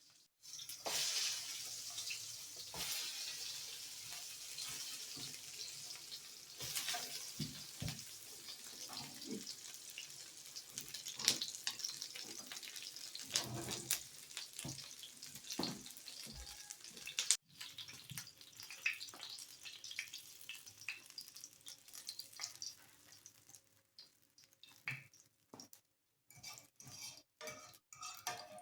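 Food sizzling and crackling in a pan, with occasional knocks and scrapes of a utensil. The sizzle breaks off abruptly about two-thirds through and resumes fainter, then gives way to light clinks near the end.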